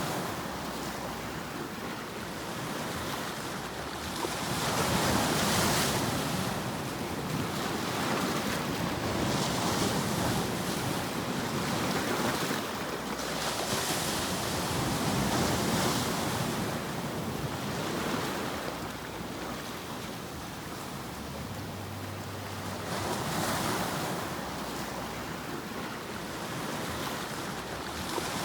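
Continuous ocean surf: waves washing in a steady rushing noise that swells and falls back every few seconds.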